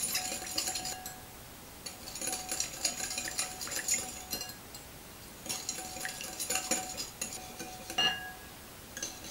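Wire whisk beating against a glass bowl, a rapid metallic clatter in three bouts with short pauses between and a single clink near the end, as olive oil is whisked a little at a time into a wine-vinegar dressing.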